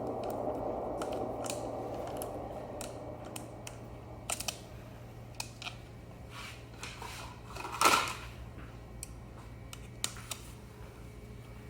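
Air hissing out of the electric scooter's tyre valve as the tyre deflates, fading away over the first few seconds. Scattered clicks and light knocks of handling follow, with one louder, brief rush of noise about eight seconds in.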